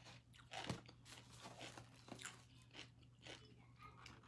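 Faint, irregular crunching of a person chewing crispy fried hot chicken.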